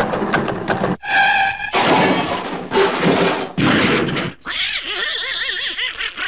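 Animated-cartoon soundtrack: a quick run of sharp taps, then Donald Duck's raspy squawking cries, ending in a wavering, warbling wail.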